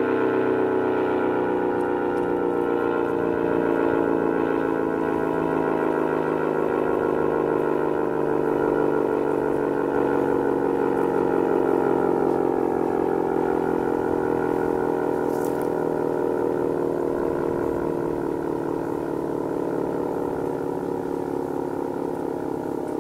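ACA Cyclone 120 outdoor warning siren sounding a loud, steady tone that slowly sinks in pitch as it begins to wind down.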